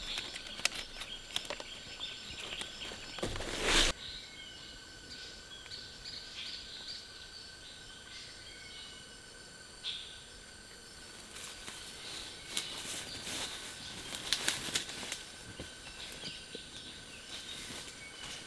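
Forest ambience: birds chirping over a steady high tone, with scattered clicks and rustles. A brief loud rustle about four seconds in.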